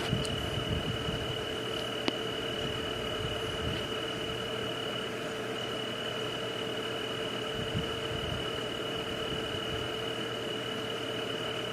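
Steady night-time nature ambience: an even hiss with a constant high drone and a lower steady hum, and a single click about two seconds in.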